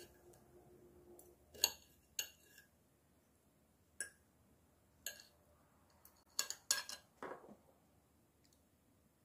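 Metal fork and knife clinking and scraping against a ceramic plate while cutting pickled cucumbers: a handful of sharp, separate clinks, with a quick cluster of them about six and a half seconds in.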